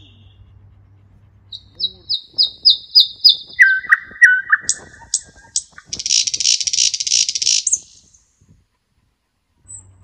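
Nightingale singing: a run of repeated high piping notes, about four a second, drops to a few lower notes and then into a dense buzzing rattle lasting about two seconds. A low steady hum sits under the first two seconds.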